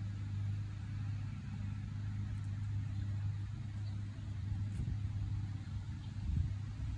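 Steady low hum of a running motor, with a short dull thump about six seconds in.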